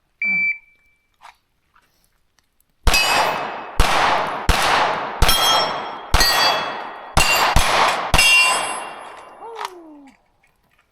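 A shot-timer beep, then, starting about three seconds later, eight Glock pistol shots fired in quick succession. Each shot is followed by the long metallic ring of a struck steel target.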